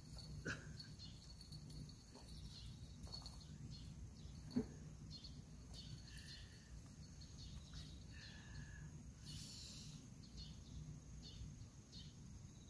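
Quiet rural ambience: faint insect and bird chirps over a low steady hum, with one short sharp sound about four and a half seconds in.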